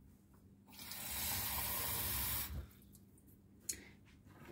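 Kitchen tap running for about two seconds as water is run into a mug, then cut off, followed by a single short knock.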